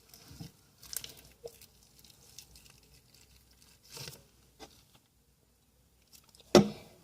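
Sticky homemade glue-and-borax slime being handled and pulled by hand: a few soft sticky tearing and squishing sounds, with a sharper, louder knock near the end. The slime is still too sticky.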